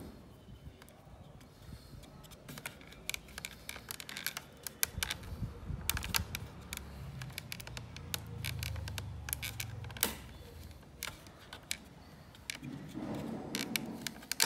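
Plastic clicks and taps of fingers working the clips of a car side mirror's plastic lamp assembly, pressed down to release its push lock: irregular sharp clicks scattered throughout, with a low rumble in the middle.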